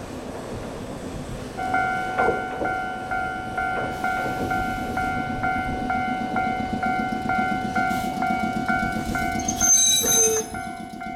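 Choshi Electric Railway 2000 series electric train rolling slowly into the station and stopping, its wheels and running gear rumbling. From about two seconds in, a level-crossing bell rings in a steady repeating ding. A brief high squeal about ten seconds in comes as the train halts.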